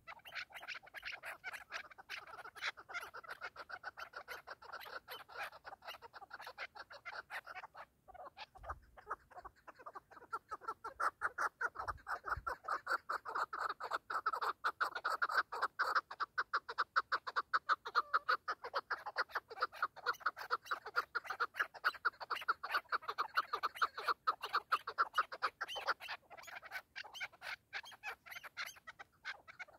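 Several chukar partridges calling with fast, repeated chuk-chuk clucks. The run of calls pauses briefly about eight seconds in, then comes back louder and keeps up in a rapid rhythm.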